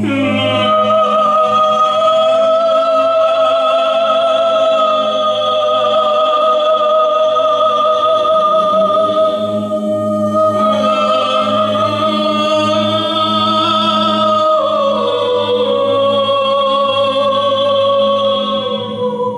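Improvised wordless singing: a long high sung note with vibrato over a steady low drone. The high line breaks off briefly about halfway through and steps down in pitch about three-quarters of the way through.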